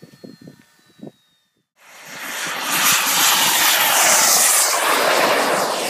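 Turbine of a SkyMaster Viper model jet, a P160SE, running at full power on the takeoff run: a loud, even rushing hiss that comes in abruptly about two seconds in and swells over the next second. Faint voices are heard briefly before it.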